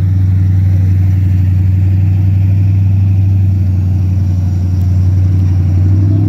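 A truck engine running steadily at an even speed, a loud low drone with no change in pitch.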